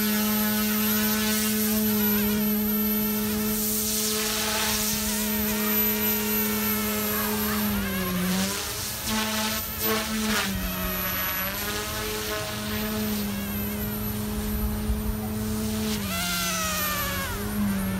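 OMPHOBBY M2 electric RC helicopter in flight: a steady rotor buzz that dips briefly in pitch three times as it maneuvers, with higher whining tones that sweep up and down as it flies past.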